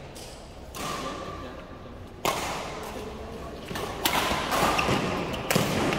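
Badminton rackets striking a shuttlecock in a rally, with a sharp hit every second or so.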